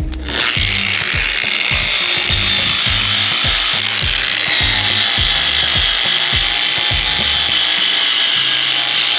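Angle grinder fitted with a sanding pad starts up just after the start and runs at a steady high whine as it sands a fiberglass surface. Background music with a steady beat plays underneath.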